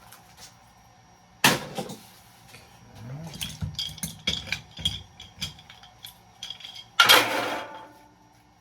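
Pieces of metal clinking and clanking as they are handled and dropped. There is a loud crash about a second and a half in, then a run of smaller clinks and knocks, then another loud crash near the end.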